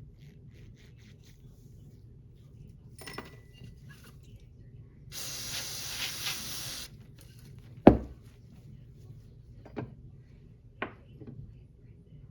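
Aerosol carburetor cleaner sprayed in one burst of about two seconds, followed by a sharp knock and a few lighter taps of parts or tools on the bench.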